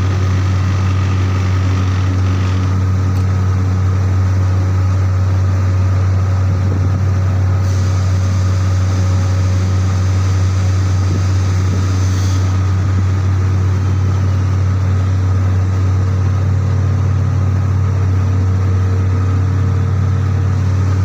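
Heavy industrial machinery running steadily, with a loud, constant low hum and no change in speed.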